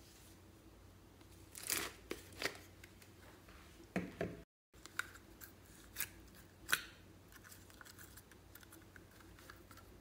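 A Peppa Pig-shaped hard plastic slime container being handled and opened: a few sharp plastic clicks and short scraping crackles, then scattered lighter ticks.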